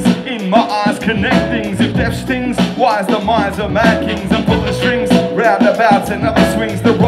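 Live hip hop/groove band playing a full groove with a steady drum beat, with a voice singing over it.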